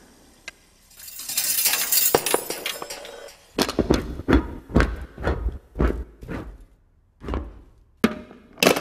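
Car parts knocking about on a wooden floor, an exhaust silencer among them: a scraping, rolling noise, then a run of sharp metallic knocks and clunks about every half second, and another clatter near the end.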